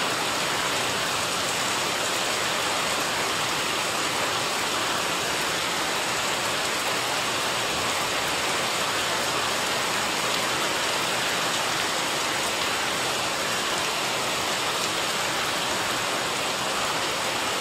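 Steady rain falling on a garden, a constant even hiss of drops on plant leaves, wet paving and a water-filled flower pot.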